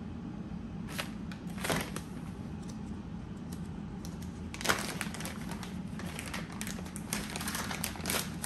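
Clear plastic parts bag crinkling as it is opened by hand and a coiled power cord is pulled out of it. Short rustles come about one and two seconds in, then a longer, busier crinkling from about four and a half seconds on, starting with a sharp crackle.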